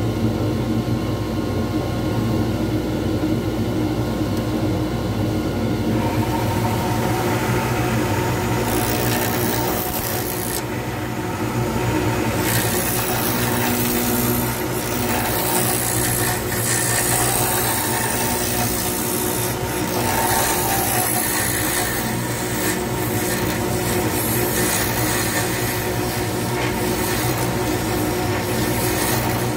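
Wood lathe motor running with a steady hum while a hand-held turning tool cuts a spinning resin pen blank, a rough, uneven scraping hiss that starts about six seconds in and carries on.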